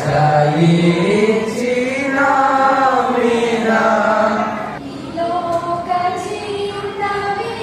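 A group of young voices singing together without accompaniment into a handheld microphone, with long held notes that slide in pitch. About five seconds in there is a break, and another young singer carries on.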